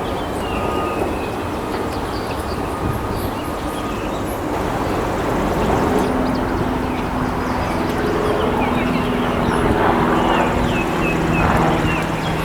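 Loud steady rumbling noise with a few short, high bird chirps; about halfway through a steady droning hum of several held tones joins in.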